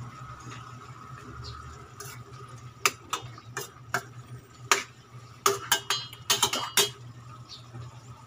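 Metal spoon stirring squid in a stainless steel pot, clinking and scraping against the pot's side: a run of about a dozen sharp clinks from about three seconds in until about seven, over a steady low hum.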